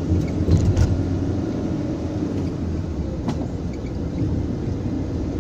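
Van on the move, heard from inside the cabin: a steady low rumble of engine and road, with a few short sharp knocks about half a second in and again near three seconds in.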